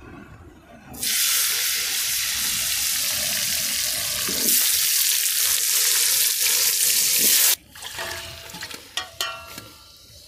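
Potato and cauliflower pieces frying in hot mustard oil in a kadai, a loud sizzle that starts suddenly about a second in and grows louder partway through. It cuts off abruptly, and a few light knocks follow.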